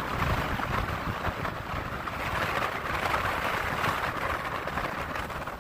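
Strong storm wind buffeting the microphone, over the rush of heavy surf breaking; the surf swells about halfway through.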